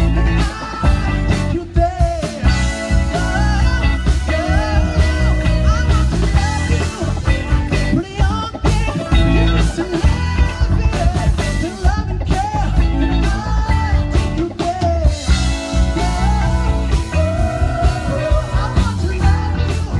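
Live band playing rock-pop: a male lead singer sings into a handheld mic over electric guitar, keyboard and a heavy bass and drum beat.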